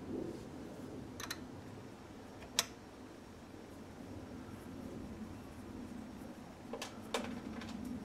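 Small metal clicks as a steel hex key is handled and fitted into the bottom of a tyre plugging tool: a few scattered clicks, the sharpest about two and a half seconds in and two more near the end, over steady low background noise.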